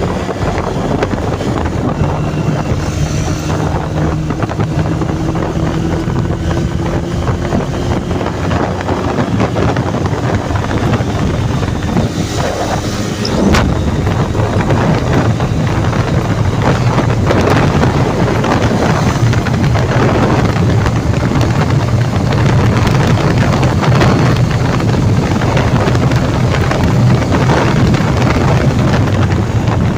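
1981 Honda CD200 Roadmaster's twin-cylinder four-stroke engine running under way, its note slowly rising in pitch over the first several seconds, heavily buffeted by wind on the microphone. The wind rush grows louder about halfway through.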